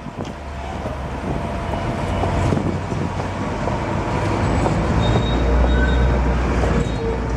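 Tram passing, its low rumble building over the first few seconds, with a few faint, brief squeals from the wheels on the rails.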